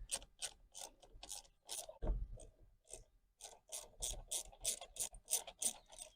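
A 1/4-inch drive ratchet with a T30 Torx bit clicking steadily, about three clicks a second, as it backs out steering-wheel screws.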